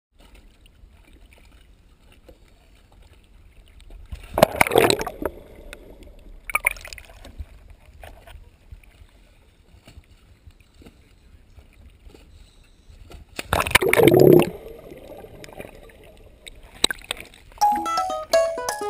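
Sea water sloshing and splashing against a GoPro at the water's surface, over a steady low wind-and-water rumble, with two louder splashes about four and a half and fourteen seconds in. Plucked guitar music starts near the end.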